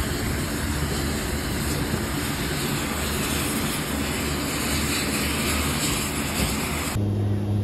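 Steady loud roar of turbine aircraft noise across the ramp. About seven seconds in it cuts to the deeper, steady drone of the C-130J's turboprop engines heard from inside the cabin, with a strong low hum.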